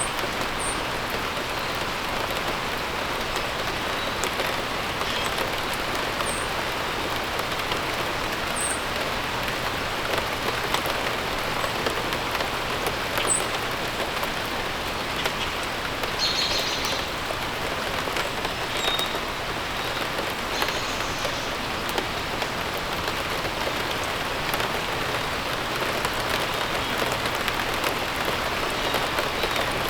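Steady rain falling and pattering on surfaces, with a few short, high bird chirps now and then.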